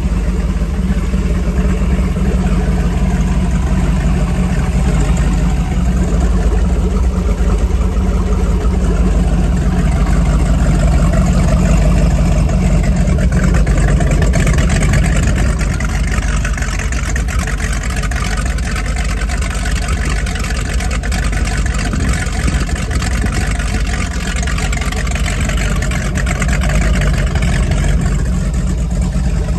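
Freshly overhauled Gen VI 454 (7.4 L) big-block V8 marine engine running steadily on a test stand after its first start-up, its wet exhaust hoses spraying cooling water.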